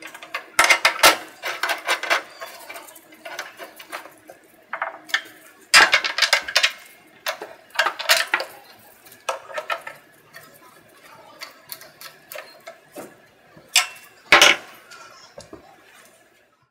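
T-handle hex key clicking and clinking against 6 mm bolts in irregular bursts as the bolts are driven in to fasten the scroll pump's cowling, with a louder knock near the end.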